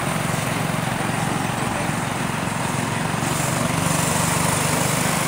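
Harbor Freight Predator 6.5 hp single-cylinder gas engine running steadily under load, driving a small tow rig that is pulling a semi tractor on a tow line.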